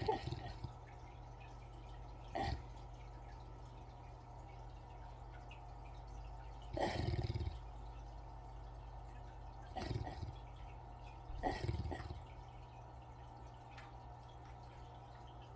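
A sleeping Great Pyrenees–Great Dane mix dog snoring: five snores at uneven intervals, the longest about seven seconds in.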